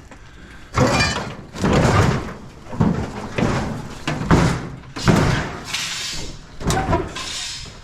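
A run of about six loud bangs and scrapes, roughly one a second, as heavy objects are knocked and shoved about while being loaded into a vehicle.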